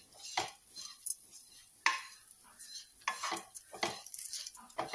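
Wooden spatula scraping and stirring grated coconut, lentils and curry leaves in a kadai as they roast on a low flame. It comes as a run of short, uneven scrapes, roughly one or two a second.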